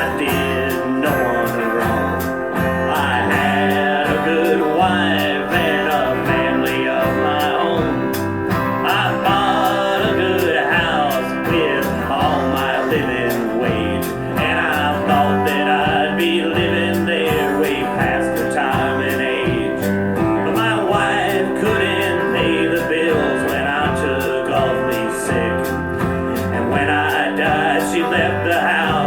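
Live country band playing an instrumental intro: guitars over an evenly pulsing bass, with a lead line that bends in pitch.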